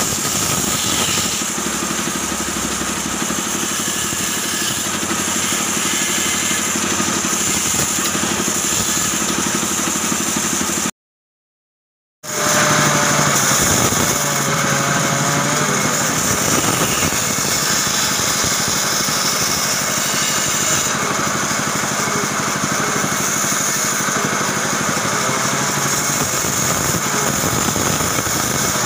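Bandsaw running steadily and cutting through a block of wood. The sound drops out completely for about a second near the middle, then comes back at the same level.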